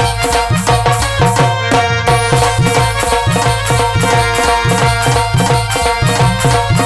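Instrumental folk music: a hand drum plays a fast, steady beat, its bass strokes bending in pitch, over held melody notes. The bass drops out briefly about two seconds in.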